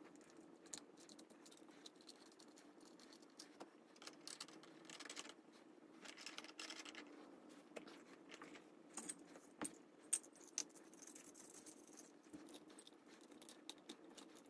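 Small metal clicks and light rattles of a lamp's metal harp, socket and ball finial being handled and fitted, with a few sharper clicks about two-thirds of the way through, over a faint steady room hum.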